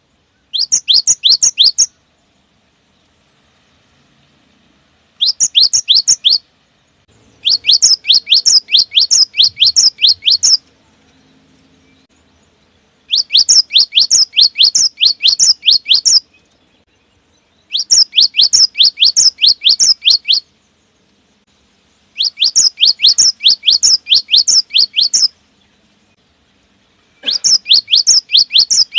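Cinereous tit (gelatik batu) singing in seven phrases of rapid, repeated, sharp high notes, about three notes a second, each phrase lasting one to three seconds with short pauses between.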